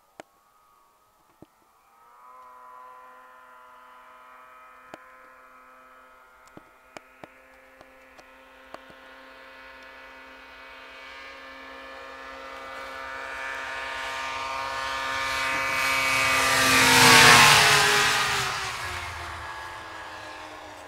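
A snowmachine engine approaching with a steady, even note that grows louder, passing close by about three-quarters of the way through, its pitch dropping as it goes past and then fading. A few faint clicks come in the first seconds.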